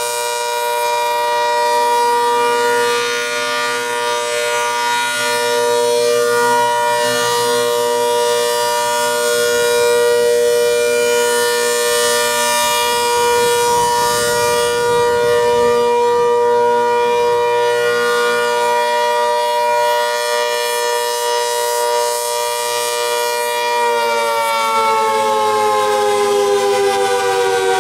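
ACA Hurricane 130 tornado siren sounding a loud steady tone, the alert signal. About 24 seconds in it begins winding down, its pitch falling.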